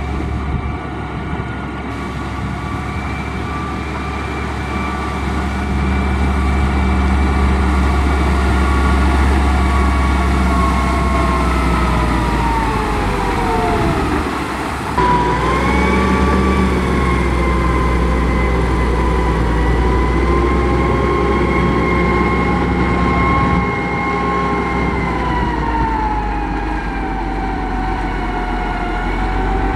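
Heavy construction machine running, a steady low engine rumble under a whine that holds, sinks in pitch about halfway through, breaks off suddenly, then rises again and holds.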